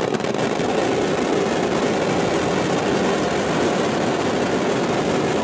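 Firecrackers packed inside a burning Ravana effigy going off together in a steady, dense roar.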